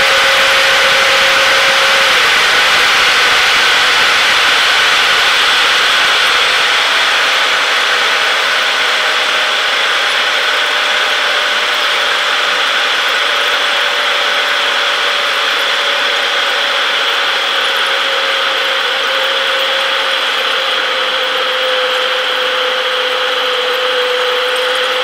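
Cabin noise of a Boeing 737 heard from a window seat over the wing during descent: the steady rush of airflow and the turbofan engines' whine. The main whine shifts pitch a couple of seconds in, then slowly falls, and the overall sound eases a little after several seconds.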